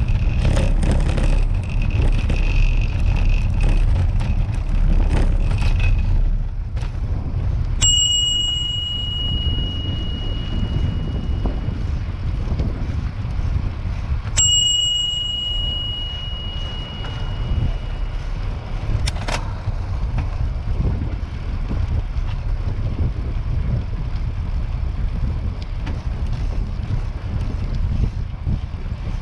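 Bicycle bell rung twice, about six seconds apart, each a single clear ding that rings on for a few seconds. Under it runs a steady low rumble of wind and riding noise, with some rattling in the first few seconds.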